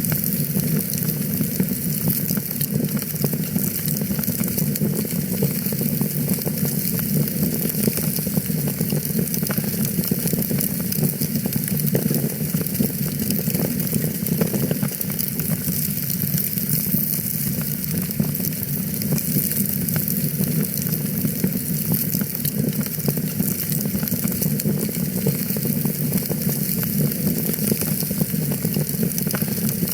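Wood fire crackling in a fireplace: a dense, irregular run of small pops and snaps over a steady hiss of burning.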